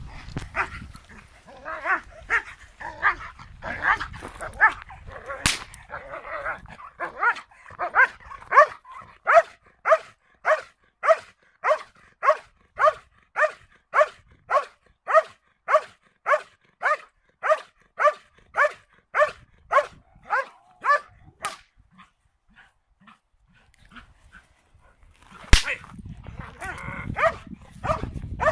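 A large dog barking hard at a helper with a bite sleeve in protection training, the barks coming steadily at about three every two seconds. The barking stops for a few seconds near the end, followed by a sharp knock and rustling as the barking resumes.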